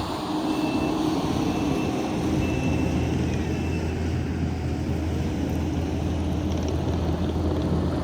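Heavy diesel equipment running steadily, with a backup alarm beeping about once a second through the first half.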